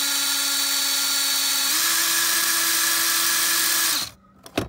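Cordless drill running steadily as it bores a small hole through a dash trim panel. Its motor pitch steps up slightly about two seconds in, and it stops about four seconds in, followed by a short click near the end.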